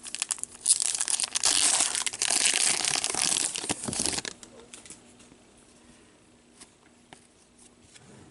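Foil wrapper of a hockey card pack being torn open and crinkled for about three seconds, then only a few faint clicks.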